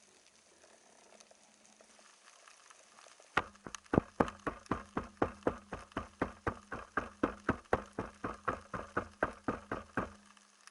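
A regular run of sharp clicks, about three and a half a second, starting a few seconds in and stopping about seven seconds later, over a steady low hum.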